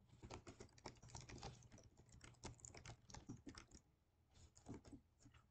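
Faint typing on a computer keyboard: a quick, uneven run of key clicks that stops about four seconds in, then a few more keystrokes.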